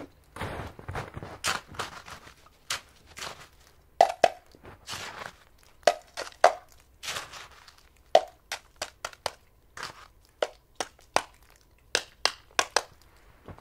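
Crusty snow being scooped with a metal cup and pot: irregular crunches and scrapes, with a few short metallic clinks.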